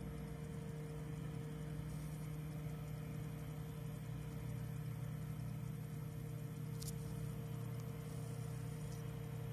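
An engine running steadily with an even low drone and a constant hum, with one short sharp click about seven seconds in.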